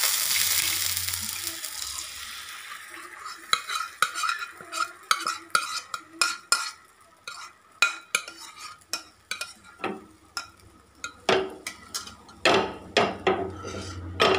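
Butter sizzling in a hot flat frying pan, the hiss fading over the first few seconds. Then a metal spoon clinks and scrapes many times against a bowl and the pan as beaten egg is poured in and spread.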